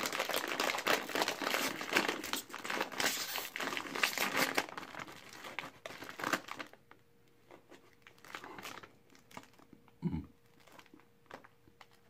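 A plastic snack bag crinkling and tearing as it is pulled open by hand, dense and continuous for about six and a half seconds, then only occasional faint rustles, with a brief low thump near the end.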